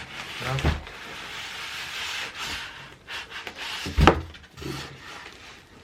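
Cardboard box and packing foam rubbing and scraping as a computer case is pulled out of its shipping box, with one loud thump about four seconds in.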